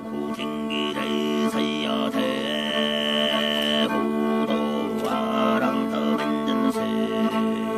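Background music: a melody over a steady low drone, with a high note held for a couple of seconds in the middle.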